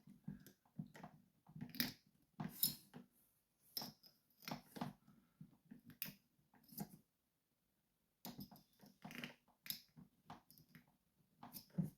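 Faint irregular clicks and scrapes of a disc-detainer pick tool turning the discs of an Abloy Classic lock, setting all discs to their maximum clockwise position, with a pause of about a second just after halfway.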